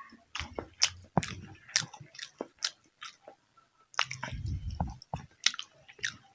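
A person chewing crunchy raw food close to the microphone: a run of sharp crackling crunches and wet mouth clicks, then a denser, lower stretch of chewing about four seconds in.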